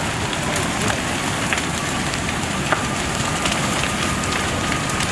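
Fire burning with a steady crackle and scattered sharp pops.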